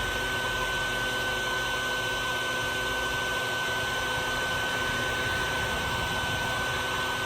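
Colorado Bee Vac's vacuum motor running steadily with a constant whine, sucking up the last straggling swarm bees.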